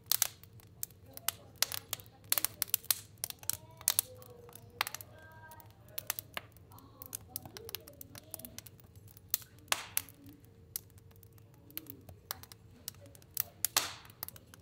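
Wood fire burning in a stove, crackling and popping irregularly, several sharp snaps a second, over a low steady hum, with faint wavering whistles now and then.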